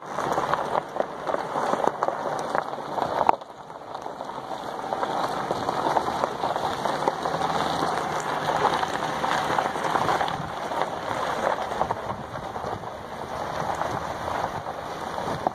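Tyres crunching and crackling over a loose gravel dirt road as the SUV drives along it, with rushing wind noise. The sound drops out suddenly about three seconds in, then builds back up.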